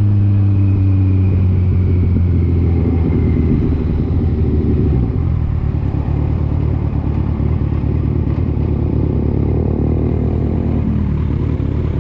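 Vehicle engine running on the move, with road rumble. A steady low engine hum over the first three seconds or so gives way to a rougher, noisier rumble.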